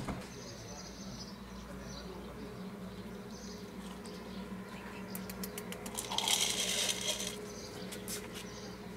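A run of small hard clicks, then a dense rattling clatter for about a second, like dry cat kibble poured onto a dish, over a faint steady hum.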